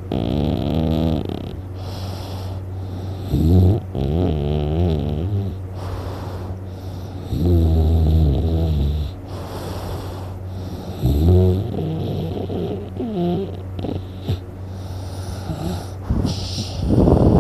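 A sleeping person snoring loudly: deep rattling snores on the in-breath, one every three to four seconds, with quieter breathing between them and a louder, rougher snort near the end.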